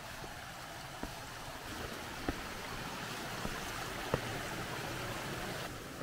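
Small forest stream trickling over rocks, with its sound swelling about two seconds in and falling away just before the end. A few sharp footsteps on the stones.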